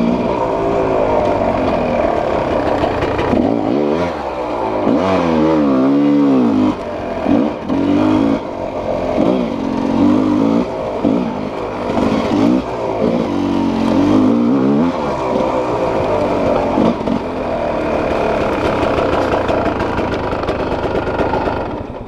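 Enduro dirt bike engine revving up and down over and over as the throttle is worked, settling into a steadier run near the end.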